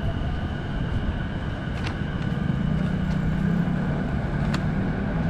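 Steady city-street rumble of traffic and crowd. About halfway through, a deeper rumble swells: a train running on the elevated railway viaduct alongside. A few faint clicks sound over it.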